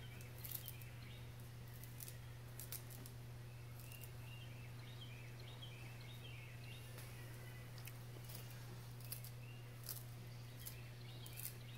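Fresh parsley being cut by hand with a small paring knife, the bunch rolled up in the fingers: faint, crisp snips at irregular intervals, about one a second, over a steady low hum.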